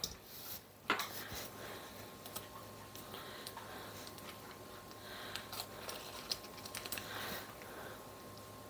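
A metal whisk knocks down once about a second in, then faint crinkling and small ticks as the paper wrapper is peeled off a stick of butter.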